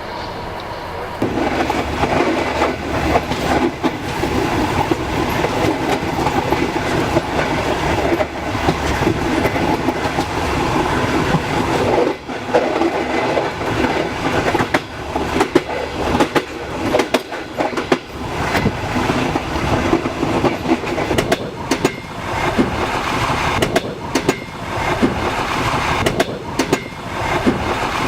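Passenger train running on the rails, the wheels clattering over the rail joints amid a loud rushing rumble, with many sharp clicks and knocks; it grows louder about a second in.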